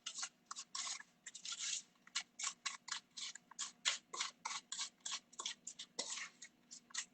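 A spoon stirring and scraping a chopped-pecan topping in a bowl: quick, irregular scratchy strokes, about two to four a second.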